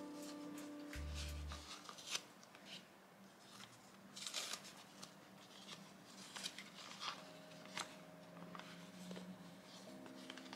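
Soft, crackly rustling of paper wrapping, handled in short strokes with a denser crinkle about four seconds in, as a mouse is unwrapped by hand. Faint soft music plays underneath.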